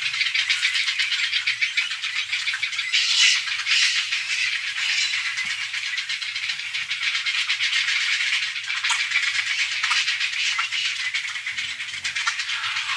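Grey heron chicks in a nesting colony giving rapid, rattling clattering calls that overlap into a continuous chatter, with a faint low hum beneath. Music comes in near the end.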